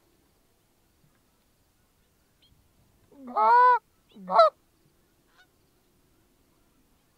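Two loud goose honks about a second apart, each breaking from a low note up to a higher one.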